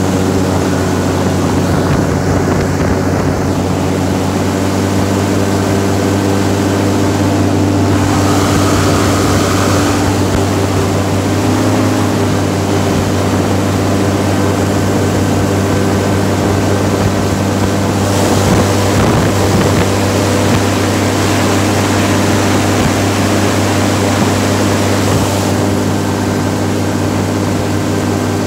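Boat's motor running steadily with a deep, even hum. Wind and water hiss swells at times.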